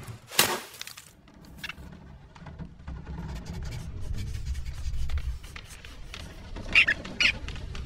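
Cartoon soundtrack: a sharp impact about half a second in, then a low rumbling with faint scratchy ticks. Near the end come two short squeaky cries.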